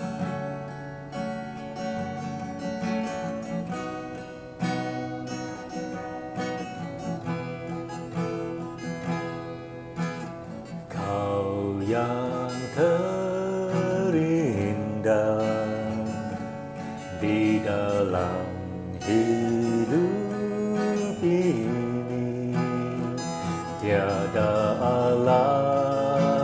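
Cort cutaway acoustic guitar, capoed, played alone as a song introduction. About eleven seconds in, a man's voice starts singing over it in slow, held phrases.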